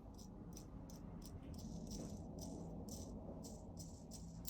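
Faint light rattling: a quick, irregular run of small clicks, several a second, over a steady low hum.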